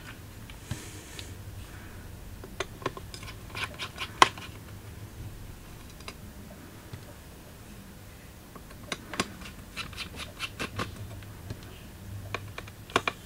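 Small screwdriver and tiny screws clicking and scraping on a MacBook Pro's metal chassis as screws around the cooling fans are worked, in scattered light ticks with two clusters, about a third of the way in and again past the middle, over a faint steady low hum.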